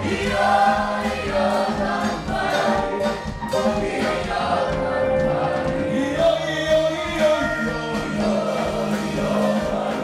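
Gospel music with a choir singing.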